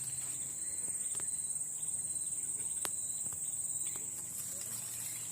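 Insects, likely crickets, trilling steadily in a high pitch, with a few faint clicks.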